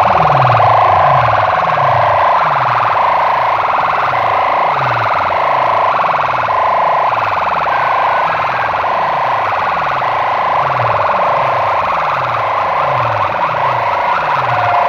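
Stacked horn loudspeakers of a DJ sound box blasting a siren-like competition track at very high volume. A wailing mid-range tone shifts in steps over a bass that drops in pitch in repeated sweeps, about three every two seconds.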